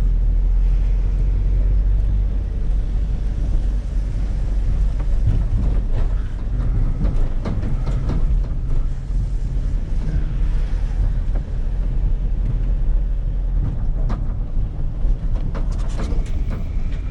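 Vehicle on the move: a steady low rumble of engine and road noise, with occasional short rattles and knocks.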